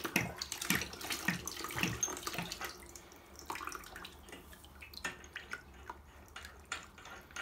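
Radiator water trickling and splashing out of the open radiator connection as a new valve is fitted over it, with small clicks of metal fittings being handled. The water noise eases after about three seconds.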